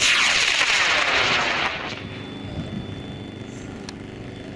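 H135 high-power model rocket motor igniting and burning: a sudden loud hissing roar that starts at once, its tone sweeping as the rocket climbs, and cuts down after about a second and a half to a faint fading tail.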